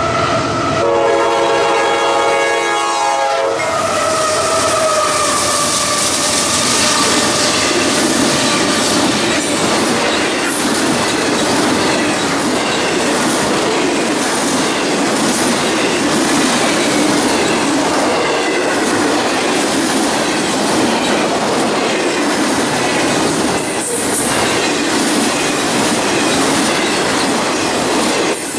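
Diesel locomotive air horn sounding a chord for the first few seconds as a CSX intermodal train approaches. It stops about four seconds in, and then the train's double-stack container cars roll past steadily with a continuous clickety-clack of wheels over the rail joints.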